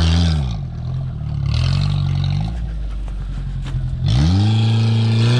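Modified Dacia 1310's engine, just started, being revved: the revs drop back to a steadier, lower run, then rise again about four seconds in.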